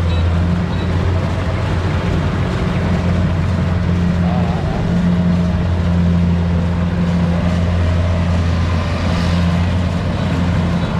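Kubota DC70 rice combine harvester's diesel engine running steadily under load with a constant low drone.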